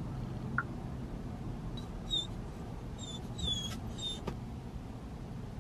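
Small dog left alone in a parked car whining: a few short, high-pitched whimpers from about two seconds in, over a low steady hum.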